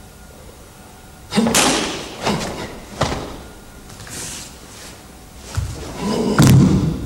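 Bare feet stamping and landing on a wooden floor and a karate gi snapping with sharp kata movements: a series of thuds, the loudest about a second in and another strong cluster near the end.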